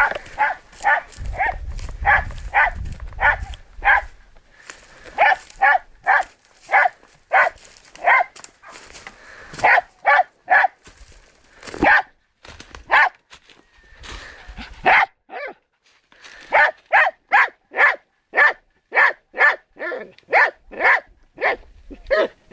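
Search-and-rescue dog barking repeatedly at a found person, about two barks a second with a short lull past the middle: a bark indication that signals the hidden person has been found.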